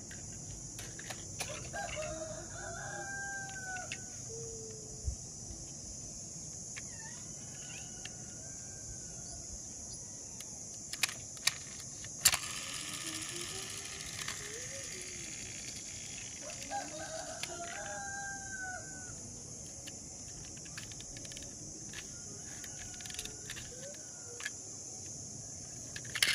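Electronic toy sound effect of an animal call, played twice about fifteen seconds apart, with sharp clicks of plastic toys being handled in between.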